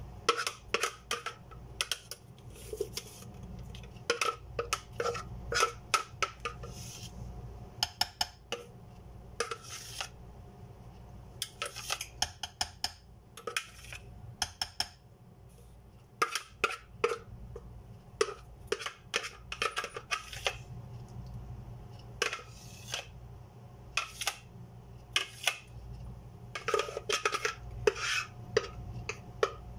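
A spoon scraping and tapping against a plastic food processor bowl and a ceramic baking dish as thick batter is scraped out: irregular clicks and knocks, often in quick clusters, over a steady low hum.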